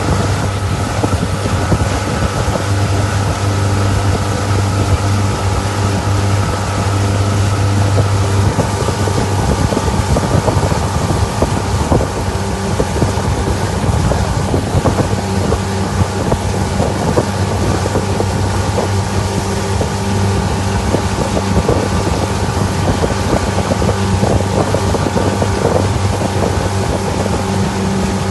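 Small launch's outboard motor running steadily under way, its low drone shifting a little in tone partway through, with wind buffeting the microphone and water rushing past the hull.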